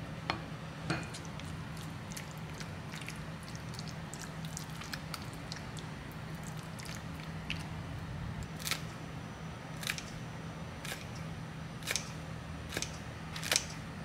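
Dishing up a rice bowl over a steady low hum. A plastic rice paddle scoops and taps rice into a stoneware bowl, and a spatula scrapes stir-fried mushroom topping onto it. Near the end, kitchen scissors snip a green chili, making sharp clicks.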